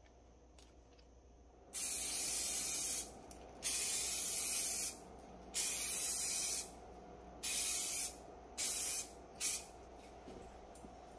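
Aerosol spray can hissing in six bursts over a floating hydro-dip film, each of the first three about a second long, then shorter ones near the end. The can is primer, used by mistake in place of activator, so the film will not take.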